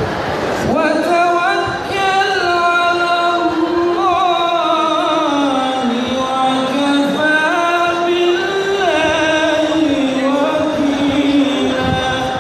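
A man chanting a religious recitation solo, starting about a second in: one unbroken melodic line of long held notes with wavering ornaments, the pitch sinking through the middle and climbing again.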